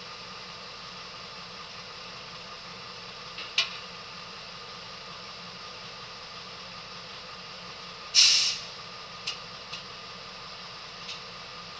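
A steady hum of an idling engine, with a few light clicks and, about eight seconds in, a short loud burst of hissing air.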